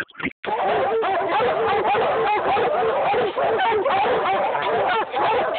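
A pack of black and tan coonhounds and Plott hounds barking treed, many loud overlapping barks and bawls with no let-up: the dogs have their quarry up the tree. The sound cuts in and out briefly in the first half second.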